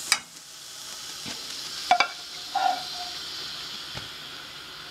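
Sauce sizzling in a hot wok, a steady hiss, with a couple of sharp metal clinks from a utensil against the pan.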